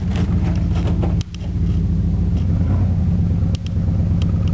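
Chevrolet K1500 pickup's 305 cubic-inch V8 running steadily as the truck drives along, heard from inside the cab, with two brief knocks.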